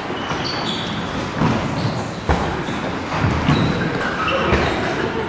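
Sparring footwork on a wooden floor: shoes squeaking several times and feet and blows thudding, with one sharp thump just over two seconds in.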